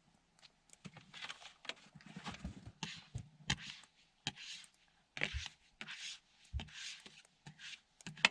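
Snow being brushed and scraped off a surface: a string of irregular swishing and crunching strokes, with a few dull knocks in between.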